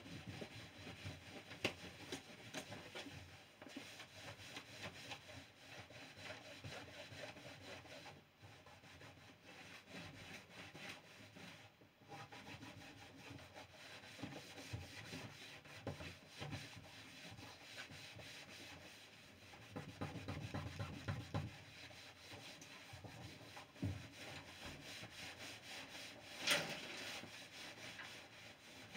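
Cloth buffing Briwax into a stripped pine door, rubbing steadily back and forth over the wood to raise a shine on the wax once it has gone off. A single sharp knock sounds near the end.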